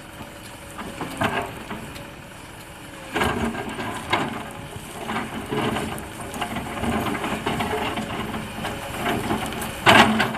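Hydraulic excavator engine running steadily. From about three seconds in, the excavator works against rock, with irregular scraping, crunching and clattering. The loudest clatter comes near the end.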